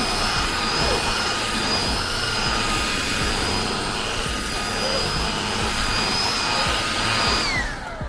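Xiaomi G10 cordless handheld vacuum cleaner running steadily with a high motor whine while sucking up dust. Near the end it cuts out and the motor winds down with a falling whine.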